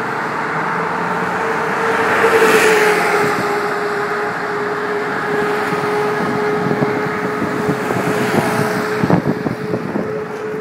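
Road traffic: cars driving past on a multi-lane road, the loudest passing about two to three seconds in, over a steady hum, with some crackling toward the end.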